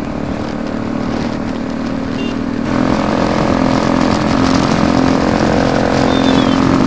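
Motorcycle engines running at a steady road speed, with a steady low drone; the sound gets louder and fuller about three seconds in.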